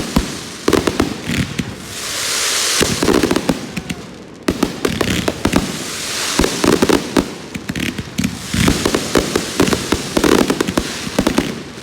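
Fireworks going off: dense, rapid crackling pops, with stretches of steady hiss about two seconds in and again around six seconds in.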